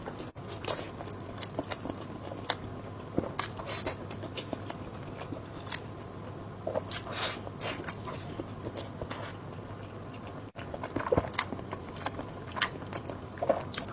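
Close-miked eating sounds: a person biting and chewing food, with irregular wet smacks and clicks.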